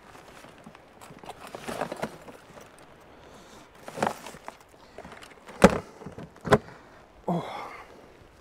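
Gentle shoreline background with scattered close handling noises: rustles, then two sharp knocks about a second apart, then a short sliding sound near the end.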